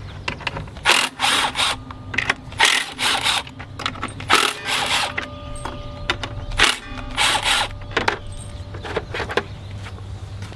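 Cordless power driver spinning out the bolts of a lawn-tractor engine's flywheel shroud in a series of short runs, each about half a second to a second long.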